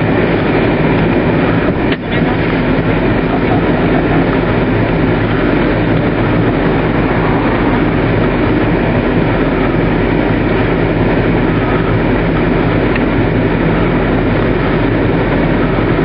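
Steady engine and road rumble heard from inside a moving vehicle, with a short dip about two seconds in.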